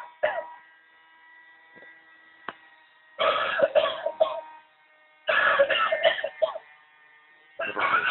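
Novelty coughing ashtray playing recorded coughing through its small built-in speaker. There are three coughing fits a second or two apart, the first about three seconds in. Each fit is a quick run of three or four coughs lasting about a second, with a faint steady electronic tone between the fits.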